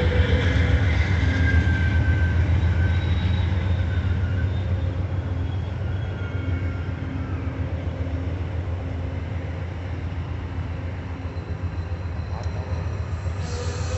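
Amtrak Superliner bilevel passenger cars rolling past: a steady low rumble of steel wheels on the rails, with faint wheel squeal in the first few seconds. The rumble slowly grows quieter.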